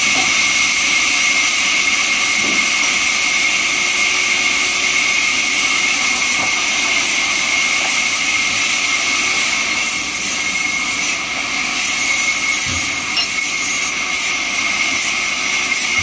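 Large vertical band saw ripping a log into boards: a steady high-pitched hiss with a constant whine from the running blade.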